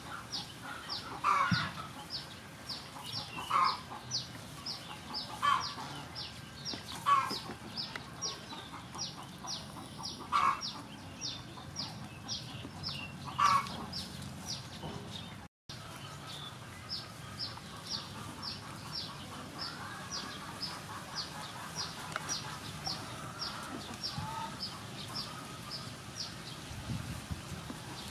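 Chickens clucking several times in the first half, each cluck the loudest sound, over a steady high chirping of two or three chirps a second that goes on throughout. The sound drops out for a moment just past halfway.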